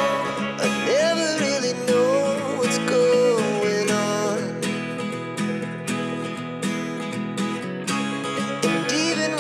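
Background music: acoustic guitar strumming and plucking under a melody line.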